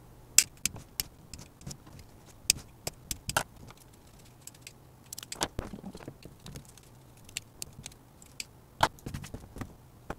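Scissors snipping off the excess tails of plastic cable ties that hold a mesh to a ventilation panel: a string of irregular sharp snips.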